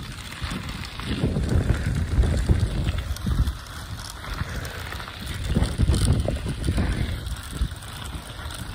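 Gusty wind buffeting the microphone: an uneven low rumble that swells about a second in and again past the middle.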